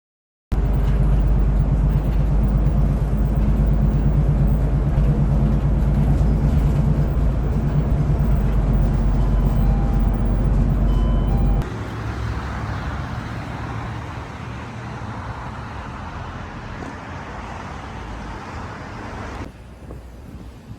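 A road vehicle running with a steady low rumble that starts suddenly. About twelve seconds in it cuts to a quieter, even hiss of traffic-like noise, which drops lower near the end.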